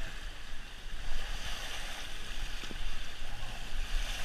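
Water rushing and splashing along an inner-tube water slide, with wind buffeting the microphone; the rush swells about a second in.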